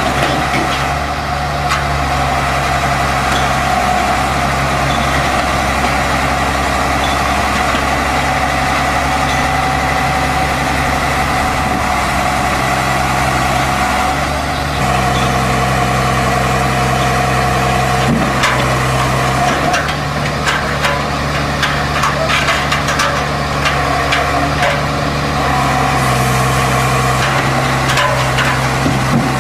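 Diesel engine of a crawler excavator-based hydraulic piling rig working under changing load as it drives its tracks up onto a low-loader trailer, its note stepping up and down several times. Scattered clanks and knocks of the steel tracks on the trailer deck come in the second half.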